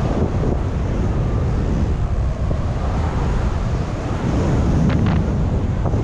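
Wind buffeting the camera microphone: a loud, steady low rumble of rushing air.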